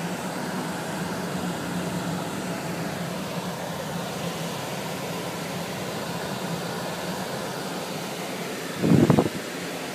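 Steady hum of a slowly moving car heard from inside the cabin: engine, fan and road noise with a low drone. A brief loud thump about nine seconds in.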